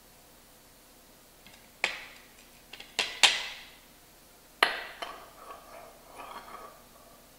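A metal serving spoon clinking against a glass baking dish and a ceramic plate as a portion of crumbly baked crisp is dished up. There are a few sharp clinks, the loudest about three seconds in, then lighter tapping and scraping.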